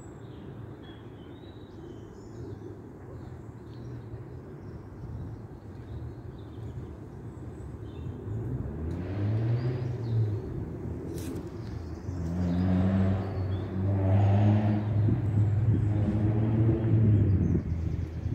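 A motor engine with a low, changing pitch, growing louder through the second half and then dropping away near the end. Faint bird chirps sit over a low rumble before it.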